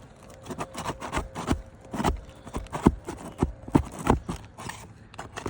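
Irregular sharp knocks, clicks and scrapes of roofing nails being worked out from under old asphalt shingles, the brittle shingles tearing and rustling as they are lifted.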